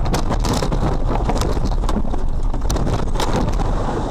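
Wind buffeting the microphone, with crackles over a steady low rumble.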